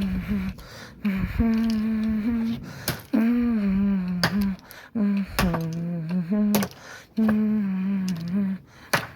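A person humming a wordless tune in held notes that step up and down in pitch, broken now and then by sharp clicks.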